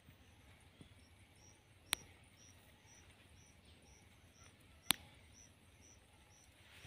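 Faint outdoor ambience with a thin, high chirp repeated about twice a second, from a small calling animal. Two sharp clicks about three seconds apart are the loudest sounds.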